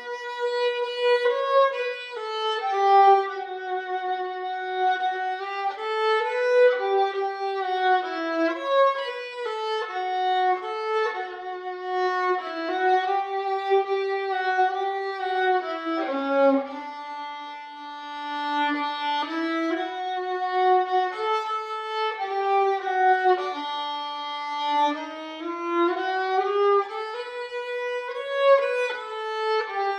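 Solo violin playing a slow melody of long held notes, sliding briefly from one pitch to the next, with no accompaniment.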